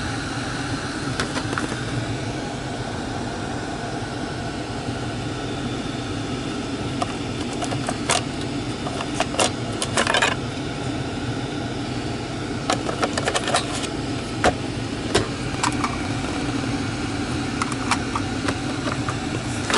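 BMW 550i xDrive's 4.4-litre twin-turbo V8 idling steadily in Park, heard from inside the cabin. Plastic clicks and rattles of centre-console covers being opened and closed come over it in a cluster about eight to ten seconds in, and again between about thirteen and sixteen seconds.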